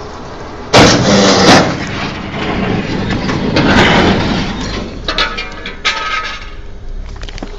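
Truck crash: a sudden loud bang of impact about a second in, with crunching metal and breaking glass, then a long rush of noise and scattered rattles and clicks.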